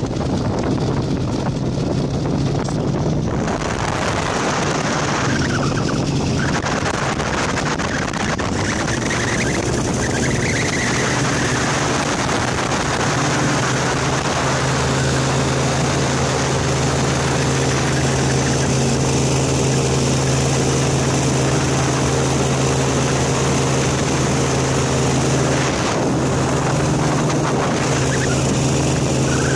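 Small aircraft's engine and propeller running steadily in flight, under heavy wind rush on the microphone. The engine drone comes through more clearly from about halfway in.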